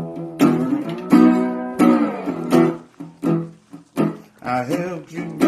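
Blues song on guitar, an instrumental passage of plucked notes and chords, with no singing.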